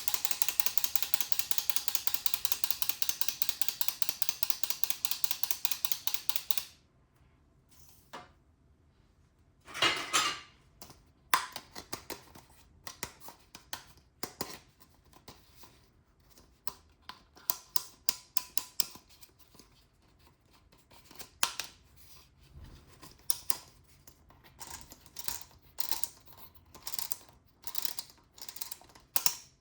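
Small plastic toy parts being handled and clicked together: a fast, even run of clicking for the first several seconds, then after a short pause, scattered clicks and taps.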